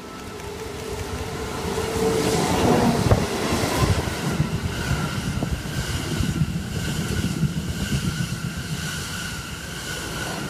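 Electric-hauled E26 Cassiopeia sleeper train passing through a station at speed. The rush of noise swells as the locomotives come by in the first couple of seconds. Then comes the steady rhythmic clatter of the coaches' wheels over the rail joints, with a high steady ring over it.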